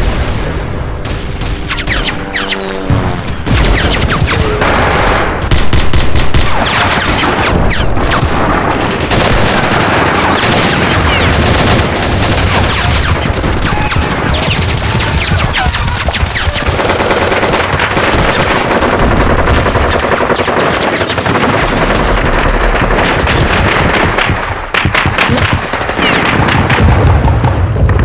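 Dense gunfire: rapid automatic bursts mixed with single shots, continuous and loud.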